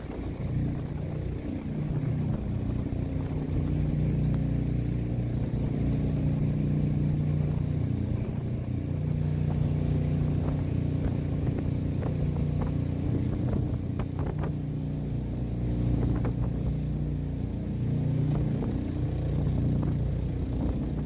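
Motorboat engine running steadily, its pitch shifting up and down a little, with a few short knocks about halfway through.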